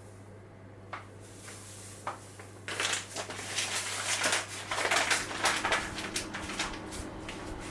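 A few single clicks, then a few seconds of irregular crunching and crackling from hands working something in the kitchen, over a steady low hum.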